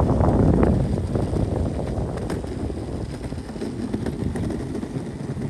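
Hub-motor electric skateboard rolling over pavement: a steady wheel rumble with wind buffeting the microphone, loudest in the first second.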